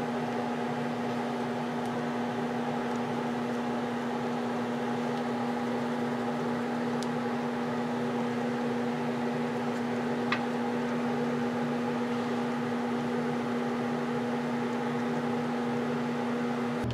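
Steady, constant-pitched machine hum, with a faint click about seven seconds in and another about ten seconds in.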